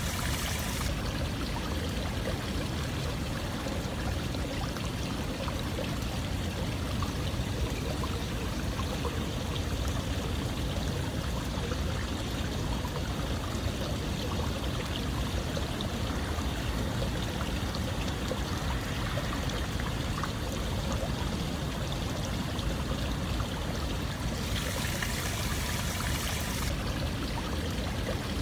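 Flowing water, a steady stream-like rush with no pitched sound or clicks, growing brighter and hissier for about two seconds near the end.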